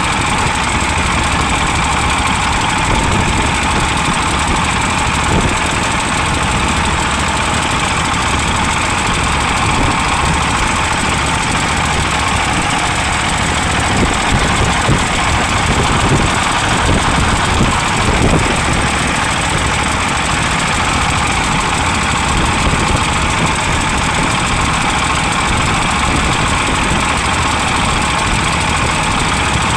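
A vehicle engine running steadily on the move, with strong wind buffeting the microphone throughout.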